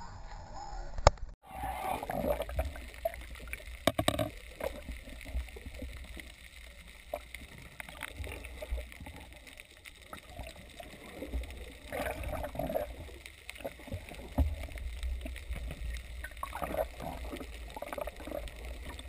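Muffled underwater sound of water gurgling and rushing past a submerged action camera, over a steady low rumble, with scattered knocks and clicks. A sharp click comes about a second in, just before the sound turns underwater.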